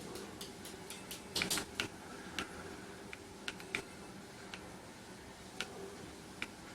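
Plastic buttons of a Matricom G-Pad gamepad clicking at irregular moments as it is played, with a quick bunch of clicks about one and a half seconds in, over a faint steady hum.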